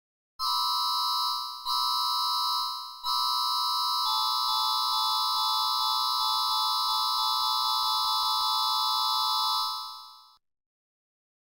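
Electronic emergency alert alarm tone, a harsh chord of several steady high pitches. It sounds twice briefly, then holds for about seven seconds before fading out.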